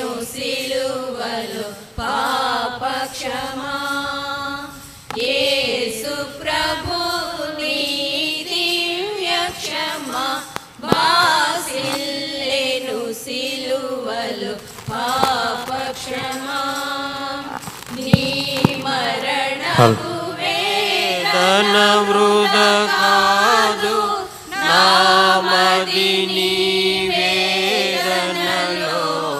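A group of women singing a Christian hymn together into microphones, with long held notes in the second half.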